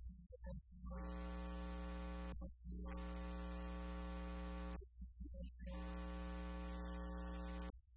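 Soft electronic keyboard music: sustained chords, each held about two seconds with short breaks between them, over a steady low hum.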